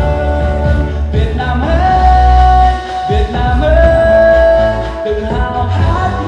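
Pop song with a singer holding long notes over a heavy bass, played through a JBL Charge 4 portable Bluetooth speaker.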